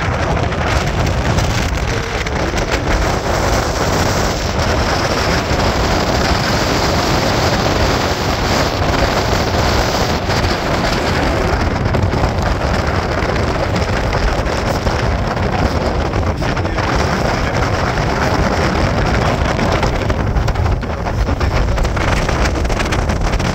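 Wind buffeting the microphone aboard a moving ferry: a loud, steady rushing noise with an uneven rumble underneath.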